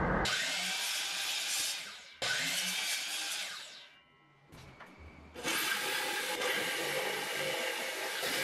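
Power saws cutting wood in quickly edited clips: two short bursts of saw noise that fade away, a brief lull, then a corded electric jigsaw cutting steadily through a pine board from about five seconds in.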